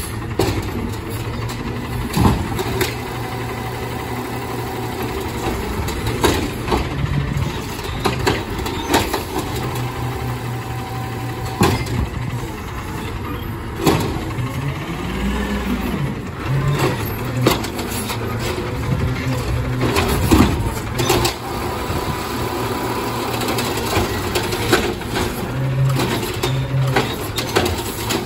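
Peterbilt 520 side-loader garbage truck's engine running at low speed, revving up and back down about halfway through. Sharp metallic clanks come every few seconds as the automated arm works a curbside recycling cart.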